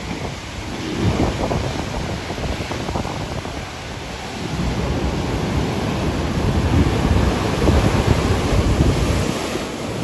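Rough sea surf: large waves breaking and foaming white water rushing over the shore, a steady low rushing wash that grows louder from about halfway through.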